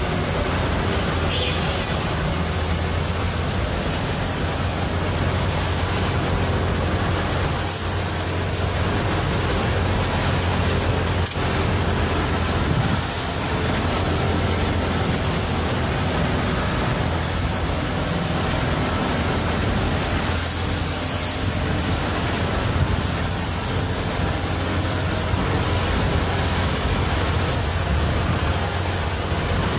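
Truck driving on a wet road: the engine runs steadily under a constant rush of tyre and rain noise, with a high whine that rises and falls every few seconds.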